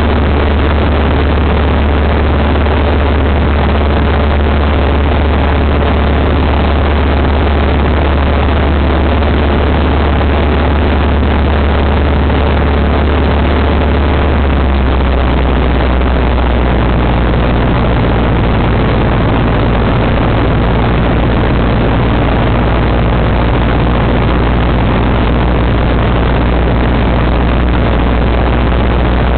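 Cabin drone of a Cessna light aircraft in flight: steady piston engine and propeller hum under rushing airflow noise. The engine note drops slightly in pitch about halfway through.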